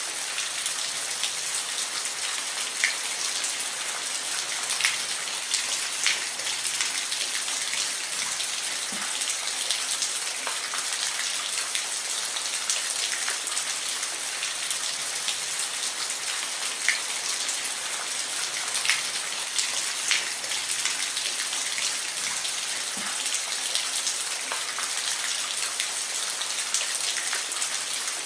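Steady rain falling, a dense high hiss with individual drops ticking sharply here and there.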